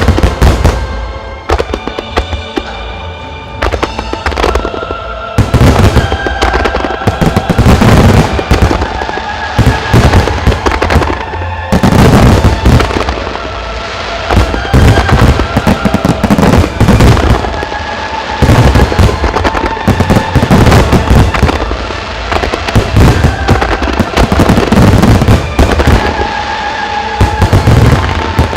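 Aerial firework shells bursting in loud volleys, clusters of sharp bangs every few seconds, over music that plays throughout.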